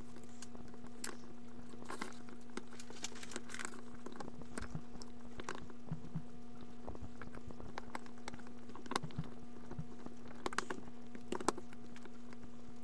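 Small clicks and crackles of fingers tucking wires into a model locomotive and pressing its die-cast shell into place, over a steady low hum.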